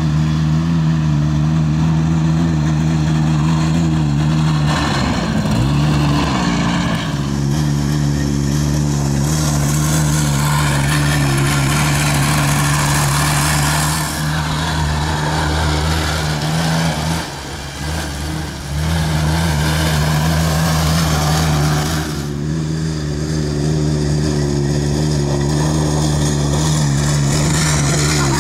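Honda Odyssey FL250 buggy's single-cylinder two-stroke engine running at steady high revs, with a brief dip and rise in pitch about five seconds in and a short drop in level near the middle.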